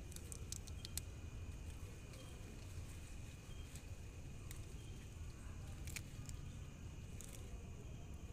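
Faint outdoor background: a low rumble under a steady high-pitched drone, with a few scattered clicks.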